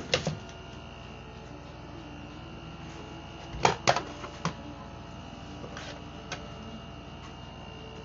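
Several sharp clicks and taps over a steady hum. A pair of clicks comes at the start, and a quick cluster of three or four comes about halfway through.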